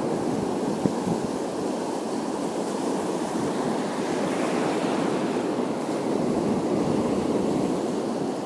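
Sea surf washing in over a shallow rocky shore, a steady rushing wash that swells a little in the second half.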